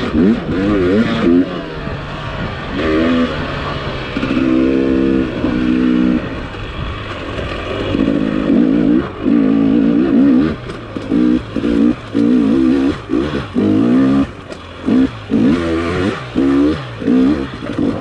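Dirt bike engine revving up and down as the throttle is opened and shut again and again, with short quick blips in the second half.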